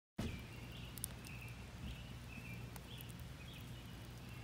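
Faint outdoor ambience by a wood fire: a steady low hum, a short high chirping call repeating about twice a second, and a few sharp crackles from the burning logs.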